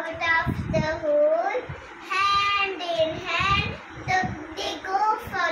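A young girl singing a nursery rhyme unaccompanied, phrase by phrase with short breaks between lines.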